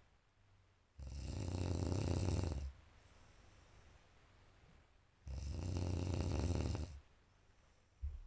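A sleeping person snoring loudly: two long snores, each about a second and a half, about four seconds apart, with quiet breathing in between.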